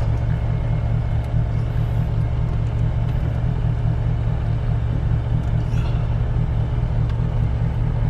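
Steady low rumble of the car's air conditioning blowing air across the microphone inside the cabin. A few faint clicks come through as the shift knob is worked onto the lever.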